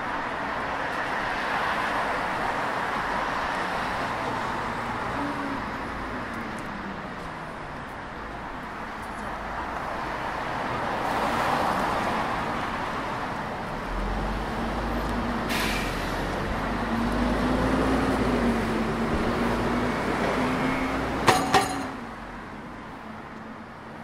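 Road traffic on a multi-lane city street: a steady wash of tyre and engine noise from passing cars, with a vehicle engine's hum rising and falling in the second half. Two sharp knocks about three-quarters of the way through are the loudest sounds, after which the traffic quietens.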